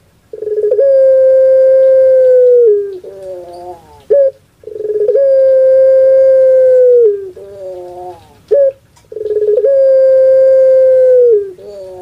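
Ringneck dove (puter pelung) cooing: three long drawn-out coos about four seconds apart. Each opens with a short clipped note, is held steady for about two seconds, then breaks into a few falling notes.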